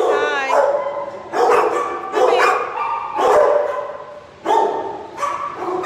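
Shelter dogs barking over one another in a hard-walled kennel run, the barks coming every half second to a second and running together.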